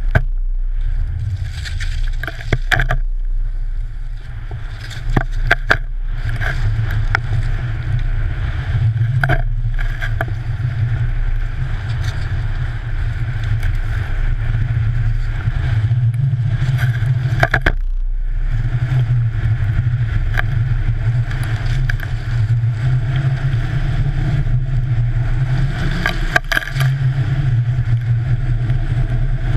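Wind rumbling steadily on a GoPro Hero3's microphone as a skier descends, with skis hissing and scraping over snow and scattered knocks and clicks.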